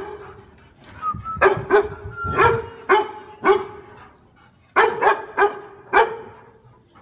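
A large chained dog barking: a run of five barks about one to three and a half seconds in, a pause, then four quicker barks about five to six seconds in.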